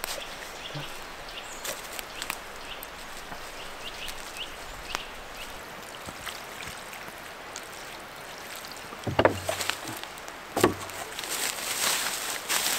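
A spade striking into soil twice, about a second and a half apart, followed by scraping and rustling as earth is dug for planting a sapling. Faint scattered ticks sound in between.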